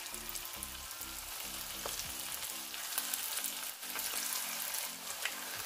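Batter-coated beef strips deep-frying in hot sunflower oil, a steady sizzle, with a few faint clicks.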